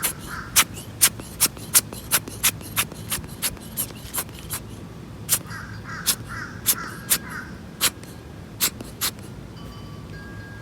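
Crows cawing at the start and again about halfway through, over a quick run of sharp clicks, about two or three a second, which are the loudest sound.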